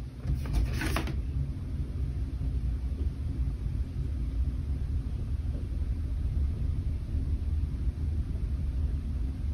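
A brief rustle at the start, then a steady low rumble with no identifiable source.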